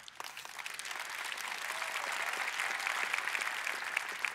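Audience applauding, swelling over the first second, holding steady, then thinning near the end.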